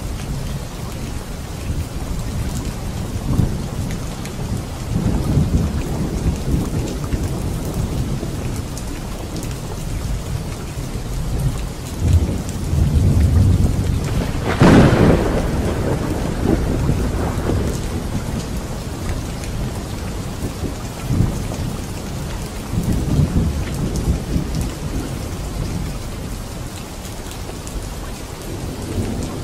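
Steady heavy rain with thunder: low rumbles swell and fade several times, and about halfway through a sharper, louder thunderclap cracks and rolls away.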